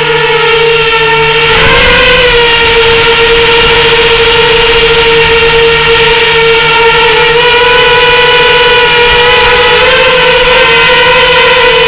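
FPV racing drone's electric motors and propellers whining at a nearly constant pitch, with small pitch bumps about two seconds in and again near the end.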